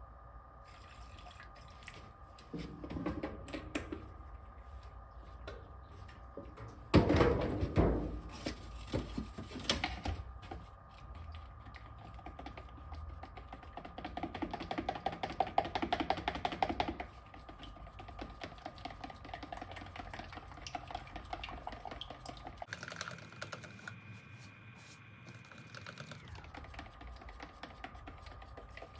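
Handling noises from mixing spray coating with thinner in a plastic spray-gun cup. There is a loud clatter about seven seconds in, then a few seconds of rapid tapping and scraping near the middle, like stirring. A faint steady hum runs underneath.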